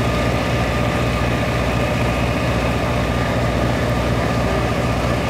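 Riverboat's engine running steadily, a low, even throb heard from on board.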